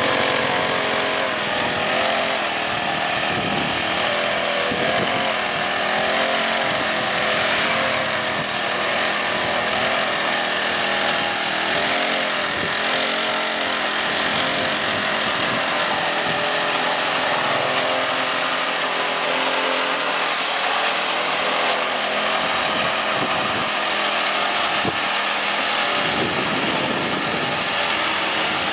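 Small petrol engine of a homemade motorized ride-on board running steadily, its pitch rising and falling as it carries the rider along.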